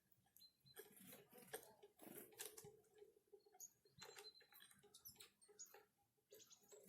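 Small forest birds at a winter feeding spot: faint, irregular pecking and tapping, with a few brief high call notes.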